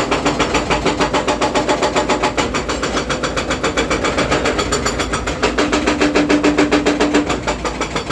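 Hydraulic hammer breaker on a Volvo 210D excavator pounding in a fast, even rhythm of about seven blows a second, over the steady running of the excavator's engine.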